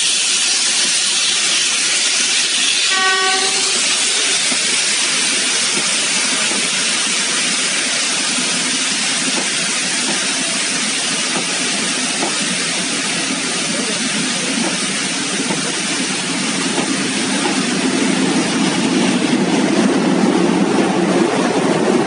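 Train of carriages behind the Class B1A 251 steam locomotive with a steady hiss and rail noise, and a short whistle blast about three seconds in. A diesel locomotive's engine grows louder near the end.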